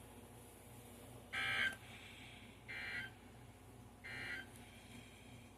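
NOAA Weather Radio SAME end-of-message data bursts: three short, buzzy digital warbles about 1.3 seconds apart, played through weather radio receivers, marking the end of the weekly test alert.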